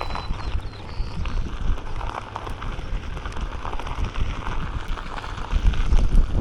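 Wind buffeting the microphone and the rolling noise of a Onewheel on a trail, with scattered clicks and crackles.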